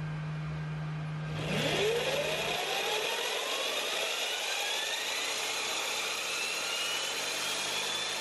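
Electric motorcycle's rear wheel being spun up in place by its electric drive through the chain: a whine that rises steadily in pitch from about a second and a half in, over a steady rushing noise from the spinning tire.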